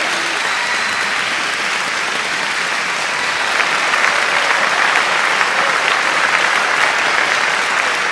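Crowd applauding steadily, growing a little louder about halfway through, with a few faint whistles.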